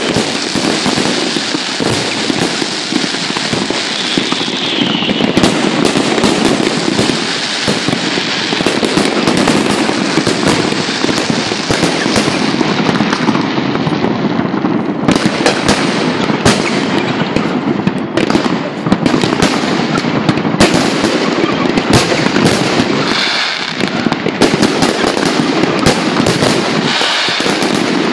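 Aerial fireworks display at full barrage: many shells bursting in quick succession, a dense, unbroken run of loud bangs.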